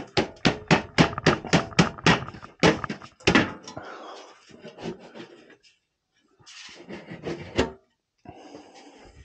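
A quick run of about a dozen sharp clicks, then scraping and a clunk of sheet metal as the galvanized flue pipe is worked loose and lifted off the collar on top of an oil boiler.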